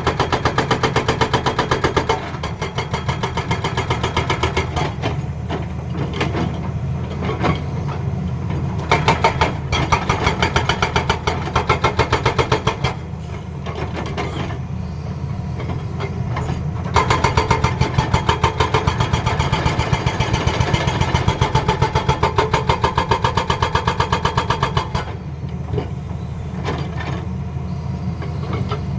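Hydraulic breaker on a Tata Hitachi excavator hammering in a fast, even stream of blows over the machine's diesel engine, growing louder for a few seconds in the middle and again for a longer stretch in the second half.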